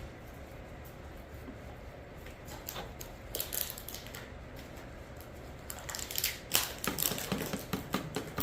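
Clicking and crinkling of plastic oil bottles being handled and squeezed, in two bouts: a short one about three seconds in and a longer, louder one from about six seconds on.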